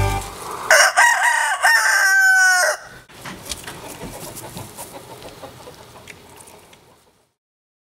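Rooster crowing once, a crow of about two seconds in several parts ending in a longer drawn-out final note. After it only a faint background remains, fading out near the end.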